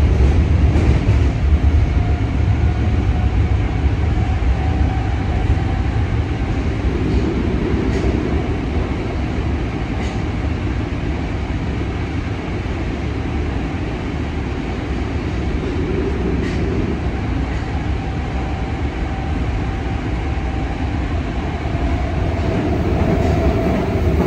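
Yokohama Municipal Subway 3000R train heard from inside the car while running through the tunnel: a steady rumble of wheels on rail with a faint wavering whine from its Mitsubishi IGBT-VVVF traction equipment. A few faint clicks come through now and then.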